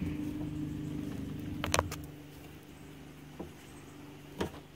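A steady low mechanical hum, weaker after about two seconds, with a few sharp knocks and clicks from the cable and its housing being handled, the loudest about two seconds in.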